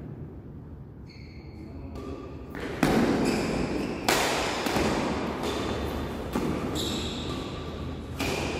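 Badminton doubles rally: sharp smacks of rackets hitting the shuttlecock, the loudest about three and four seconds in and again near the end, with short squeaks of players' shoes on the court floor. The hits echo in the hall.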